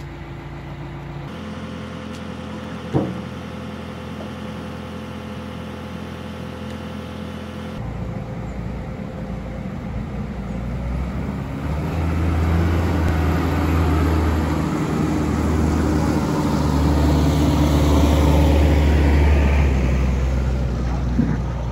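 Diesel engines of a Manitou rotating telehandler and a truck-mounted crane running steadily while lifting. The engine runs louder and harder through the second half. There is one sharp knock about three seconds in.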